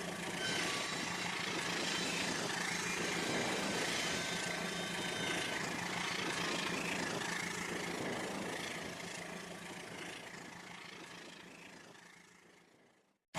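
Rail King toy train running on its plastic track: a steady whirring of its small electric motor and the rattle of its wheels, with a faint constant hum. The sound fades away over the last five seconds and cuts off just before the end.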